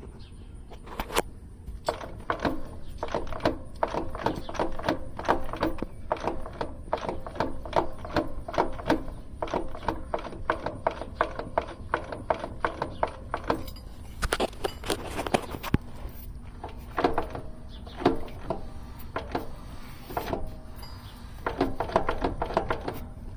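Inside a moving 2012 Scion xB: steady low road rumble and drone, the humming that the title puts down to a bad CV axle at high speed. Rapid, irregular clicks and taps run over it for much of the time, and stop briefly about 14 seconds in.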